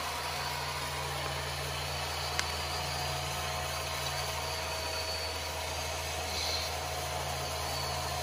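Steady low engine-like idling hum from radio-controlled model construction vehicles, with one short click about two and a half seconds in.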